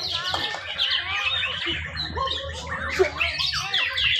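Several caged white-rumped shamas (murai batu) singing at once against one another, a dense tangle of overlapping whistles, chirps and harsh calls, over a low steady hum.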